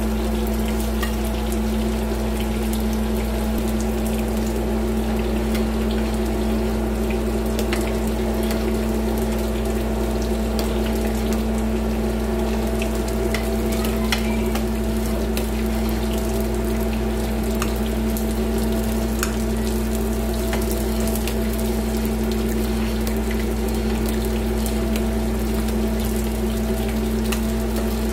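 Pork frying in a wok of oil, sizzling with scattered small pops, over a steady hum. From about halfway through, a spoon stirs a pot of thick kare-kare sauce.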